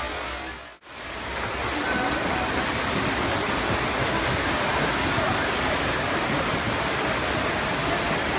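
Steady noise of a swimming race in an indoor pool hall, with swimmers splashing and spectators shouting blended into one echoing roar. It drops out briefly about a second in.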